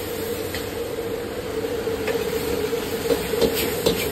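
Steady rush of a high-output gas wok burner with a wok of shredded chicken and vegetables sizzling over it; the metal ladle clinks and scrapes against the wok a few times near the end.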